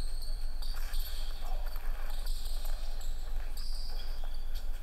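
Basketball being dribbled on a hardwood gym court, with sneakers squeaking in short high squeals several times as the players move.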